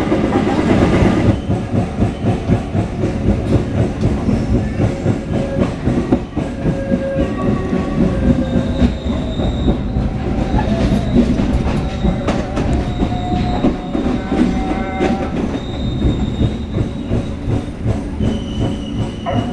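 Logawa passenger train running on the rails: a steady rolling rumble with wheels clacking over rail joints and brief high wheel squeals now and then. It is louder for about the first second, then settles.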